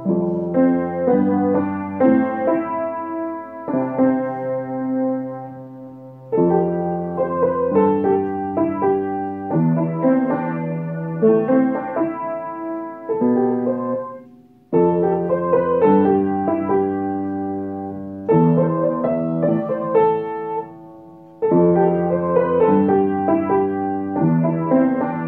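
Background piano music: chords and melody notes in phrases, with short dips in level before new phrases start about 6, 15 and 21 seconds in.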